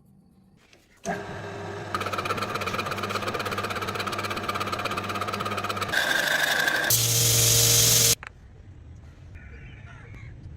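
A power tool starts about a second in and runs steadily with a fast, buzzing rhythm. Its tone shifts abruptly a few times before it cuts off suddenly about eight seconds in.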